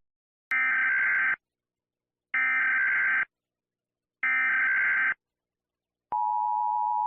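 US Emergency Alert System broadcast alert: three short bursts of buzzy SAME header data tones about two seconds apart, then the steady two-tone attention signal starting near the end.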